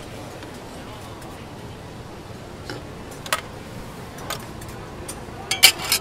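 Sharp clinks of metal spoons and ladles against stainless-steel bowls, a few scattered ones and then a quick cluster of the loudest near the end, over a steady background din.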